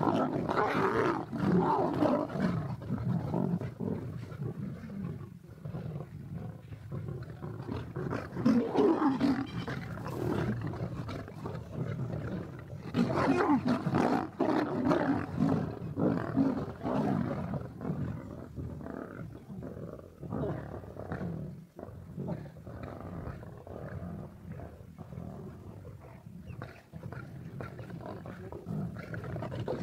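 A pride of lions snarling and growling as they squabble over a zebra kill, fighting each other for a place at the carcass. The snarling comes in loud bouts at the start, about eight seconds in and again about thirteen seconds in, easing to quieter growls in the second half.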